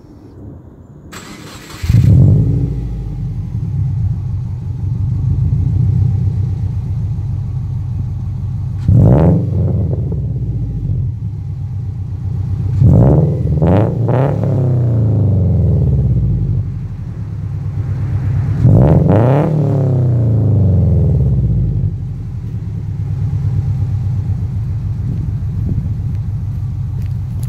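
Naturally aspirated Subaru Impreza flat-four engine starting through a large single-tip exhaust: a brief crank about a second in, then it catches and idles. It is revved four times, once near nine seconds, twice in quick succession around thirteen to fourteen seconds and once near nineteen seconds, each time dropping back to a steady idle.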